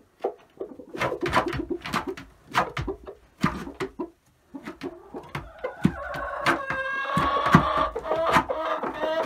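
A rooster scratching and pecking in the wood shavings of a nesting box, a run of sharp clicks and rustles for the first few seconds, then chickens clucking with repeated low calls from about six seconds in.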